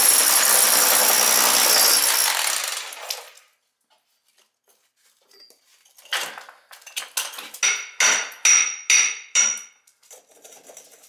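A power tool runs loud and steady for about three seconds, then winds down and stops. After a short pause, a hammer strikes metal about ten times in quick succession, each blow ringing.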